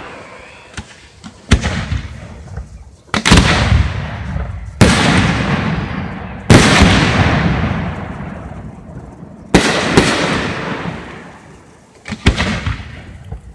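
Aerial fireworks shells bursting overhead: about eight sharp bangs, some in quick pairs, each followed by a rumbling echo that fades over a couple of seconds.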